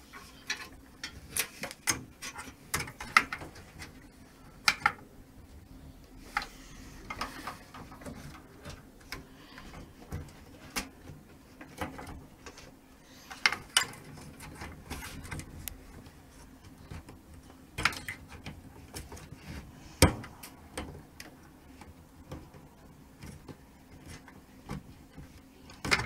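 Hands handling power supply cables and plugging in SATA power connectors inside a PC case: irregular plastic clicks, taps and cable rustling.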